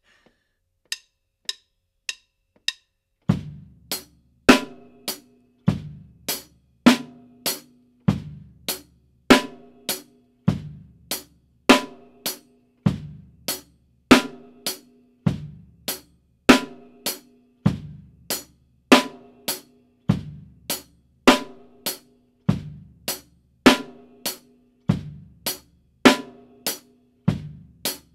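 Drum kit playing a slow, even rock groove: bass drum on beats 1 and 3, snare on 2 and 4, and hi-hat on the upbeats in between, each stroke clearly apart. It starts about three seconds in, after four light count-in clicks.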